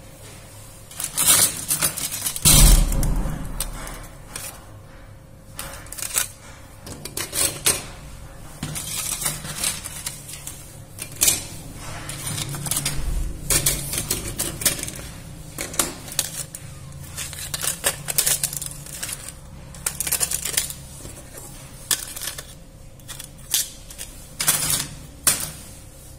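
Irregular small clicks, taps and clatter of a Samsung J1 phone's bare circuit board and plastic parts being handled and set on a wooden table, with a louder knock about two and a half seconds in.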